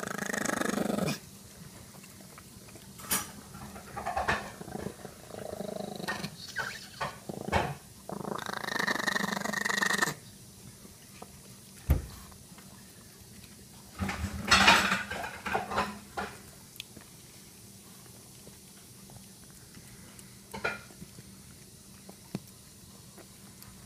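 A Pomeranian growling in several long bursts while guarding its food from a larger dog, with one sharp knock about halfway through.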